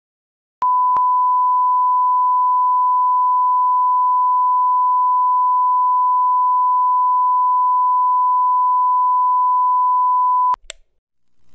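Test tone of the kind that plays over SMPTE colour bars: one steady, unbroken beep at a single pitch. It starts with a click about half a second in and cuts off suddenly with a click about a second before the end.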